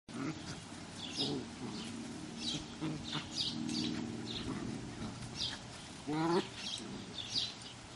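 German Shepherd puppies making play noises at their mother: low grumbling sounds and a short, loud rising yelp about six seconds in. Birds chirp throughout.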